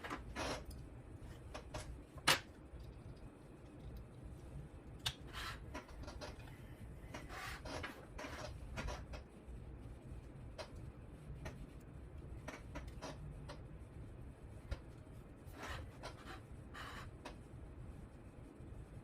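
Scattered light clicks, scrapes and rustles of hands handling wires and small parts on a model helicopter, with one sharper click about two seconds in, over a low steady hum.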